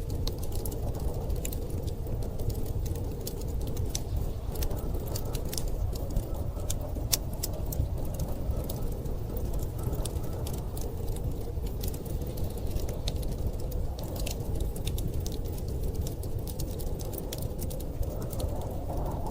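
Wood fire crackling, with many small, irregular pops and snaps over a steady low rumble of storm wind.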